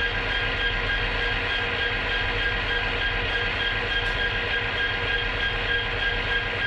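Train running steadily: a constant rumble and rolling noise with a few steady, high whining tones over it.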